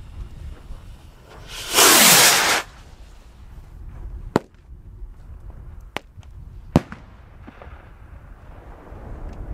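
Firework lifting off with about a second of loud rushing hiss, followed by three sharp, separate bangs a few seconds later. A low wind rumble runs underneath.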